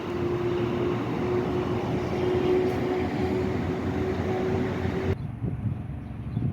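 Steady vehicle or machinery noise with a constant hum, which cuts off abruptly about five seconds in to quieter outdoor noise.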